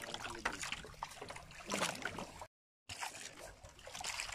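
Water splashing and trickling, with brief faint voices; the sound cuts out for a moment about two and a half seconds in.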